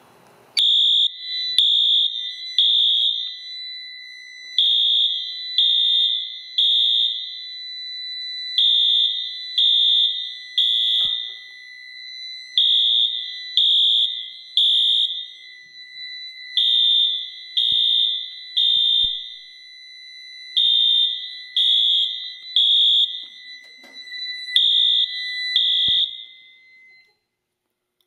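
Siemens-branded Wheelock MT fire alarm horn sounding in the code-3 temporal pattern, set by the control panel: groups of three horn blasts about every four seconds, quite loud. The panel is in alarm because a smoke detector was tripped with canned smoke. A steady high-pitched beep runs underneath, and both cut off shortly before the end.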